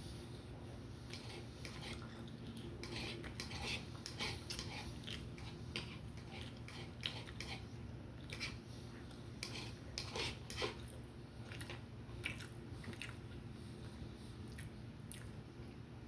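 A person chewing and biting food close to the microphone, with irregular short mouth clicks and crunches that cluster in two busier stretches. A steady low hum runs underneath.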